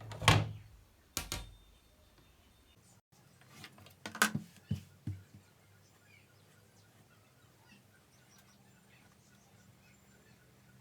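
A few short thumps and knocks, the loudest near the start, another just after a second in and a small cluster about four seconds in. After that there is only faint room tone.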